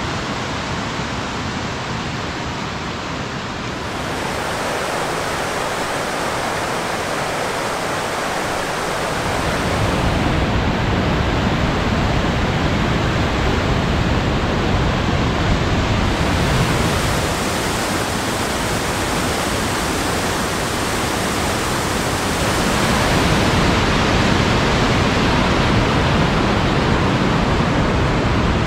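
Rushing mountain creek tumbling over rocks, a steady whitewater roar that grows fuller and louder about ten seconds in and again near the end.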